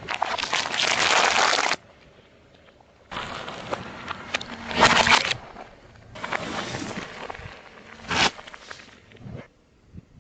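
Objects cracking and crunching as a car tyre rolls over and crushes them, in about four separate bursts that start and stop abruptly, with a sharp crack near the end.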